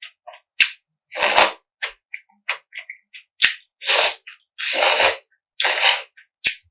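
Close-miked eating of spicy mixed noodles: about four quick, loud slurps, with small wet mouth clicks and smacks between them.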